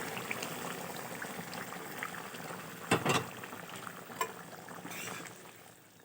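Chicken curry, its gravy freshly topped up with water, bubbling in a cooking pot, with two sharp clicks about three and four seconds in.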